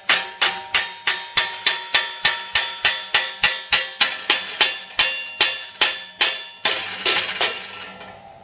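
A hammer striking metal about three times a second, each blow ringing, with the blows slowing and fading near the end and one more strike at the close.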